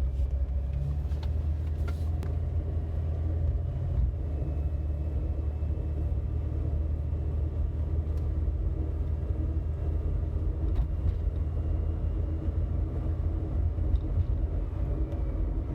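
2000 Jeep Cherokee XJ on the move, a steady low rumble with a few faint steady tones above it. The odd noise has stayed the same after new wheel hub assemblies, rotors and brake pads, does not change when the brake is tapped, and goes away only at low speed.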